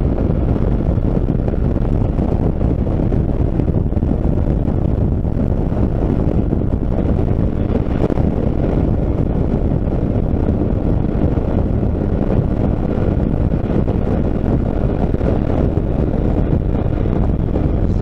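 Steady wind rushing over the microphone, mixed with a motorcycle's engine and tyre noise while cruising at highway speed.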